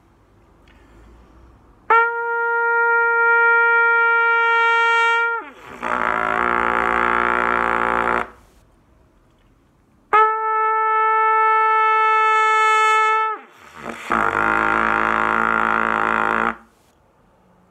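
Trumpet playing a held mid-register note that slides down into a much lower pedal note, which is also held; the pair is played twice. This is the ansetzen–einsetzen lip exercise, moving from the normal lip setup into the unfurled einsetzen position.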